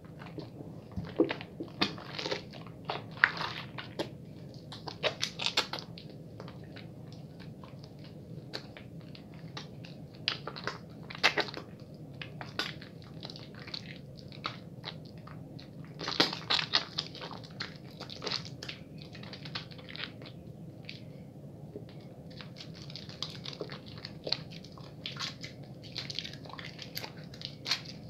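Bar of soap being lathered at a fairly quick pace: wet, crackly squishing strokes that come in irregular clusters, over a steady low hum.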